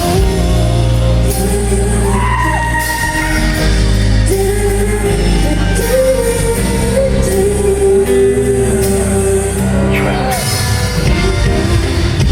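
Live concert music: a female singer's sustained, wavering vocal lines over the band's accompaniment, with shouts from the stadium crowd.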